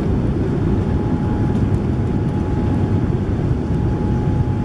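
Boeing 787-9 cabin noise during the climb just after takeoff: a steady, low engine and airflow rumble heard from inside the cabin, with a faint steady whine coming in about a second in.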